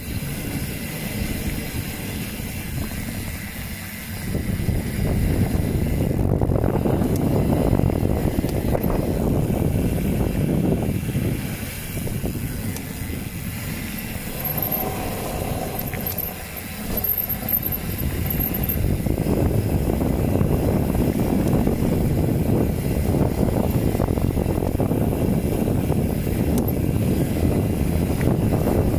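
Wind buffeting the microphone and the rumble of a fast downhill ride over a trail. The noise is steady, with two brief lulls and a faint high squeal near the middle.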